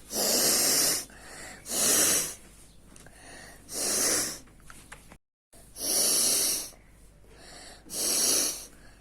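A woman blowing her nose hard: five forceful blasts, each just under a second long, coming about two seconds apart.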